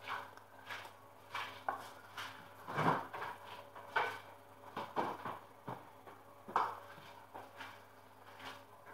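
Kitchen utensil clinking and scraping against a metal pan and dishes in short, irregular knocks, about a dozen of them, while chicken pastilla filling is spread and levelled in the pan.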